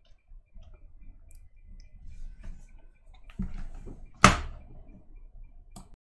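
Quiet room noise with a few faint clicks, a dull thud about three and a half seconds in and one sharp knock a second later, the loudest sound.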